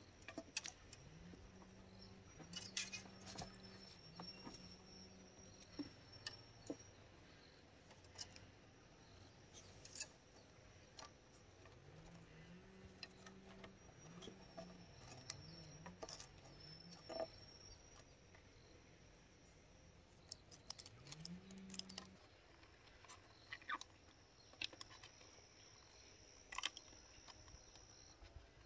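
Mostly quiet, with faint scattered clicks and taps from bamboo poles being handled on a bamboo-pole bridge. A faint low hum rises in pitch and holds several times in the first two thirds, and a thin high whistle comes and goes.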